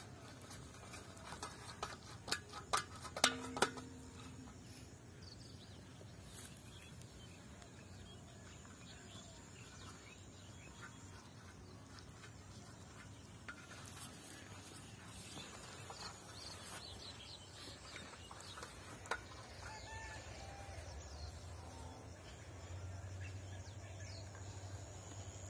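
Quiet rural outdoor ambience with faint scattered bird calls. A short cluster of sharp clicks and knocks comes a couple of seconds in.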